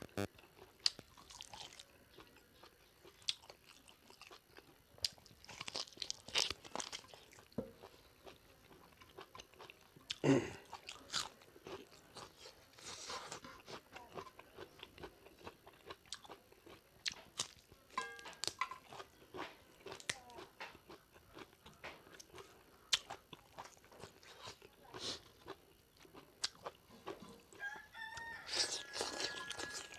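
Someone eating pork leg curry close to the microphone: irregular crunching bites and chewing, with one louder crunch about ten seconds in.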